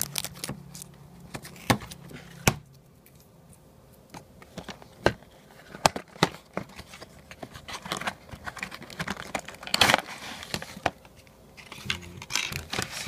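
Hands handling and opening a cardboard model box and its packaging: irregular clicks, taps and crinkles of cardboard, tape and plastic, with a denser flurry about ten seconds in.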